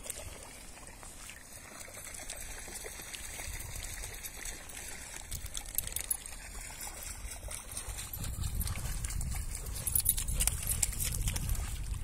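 Wind buffeting the microphone over shallow sea water lapping gently at the shore. The wind gusts louder from about two-thirds of the way in, with a few short splashy clicks near the end.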